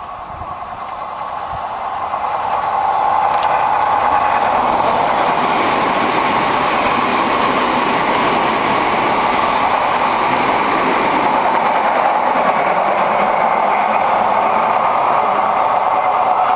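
Odakyu 3000 series ten-car electric train passing through a station at speed. The running noise builds over the first three seconds or so as it approaches, then holds loud and steady as the cars go by.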